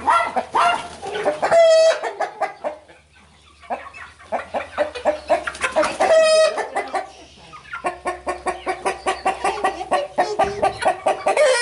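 Chickens clucking, with two loud squawks, about two seconds and six seconds in, from young birds being handled. A fast run of rapid clucks fills the last few seconds.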